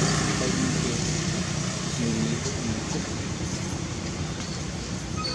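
Motorbike engine and road noise, a steady rumbling hiss that slowly fades as the bike moves away.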